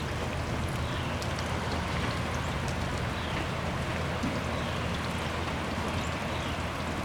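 Rain falling, with water running and dripping down an ice-coated rain chain: a steady wash of water with small scattered drip ticks.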